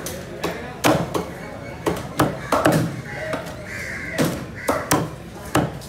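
A heavy fish knife chopping through skipjack tuna on a cutting board, striking again and again at about two chops a second.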